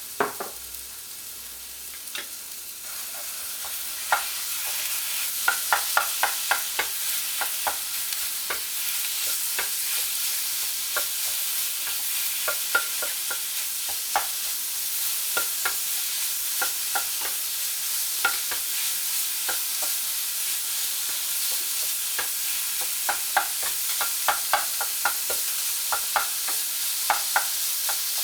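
Chicken pieces sizzling as they fry in hot oil in a pan, with a cooking utensil repeatedly clicking and scraping against the pan as the chicken is stirred. The sizzle swells a few seconds in and then holds steady.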